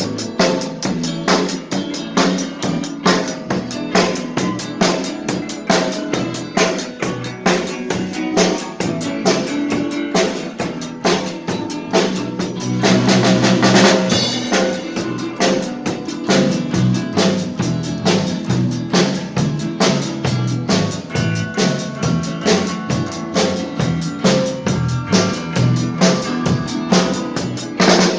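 A band playing with a drum kit driving a steady beat of bass drum, snare and rimshots under bass and other pitched instruments. The playing swells to a louder, fuller passage about halfway through.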